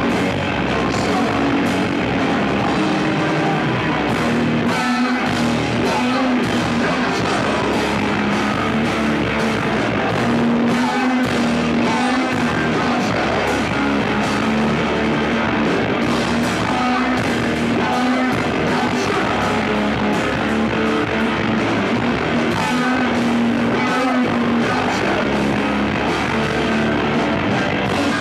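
Live rock band playing loud: electric guitar, bass guitar and drum kit in full swing.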